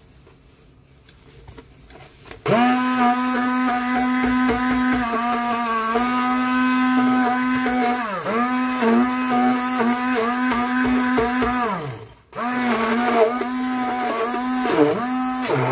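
Electric blender grinding sesame seeds and oil into tahini paste. The motor starts about two and a half seconds in with a steady hum, drops in pitch briefly a few times as the thick seed mix loads it, stops about twelve seconds in and starts again straight away.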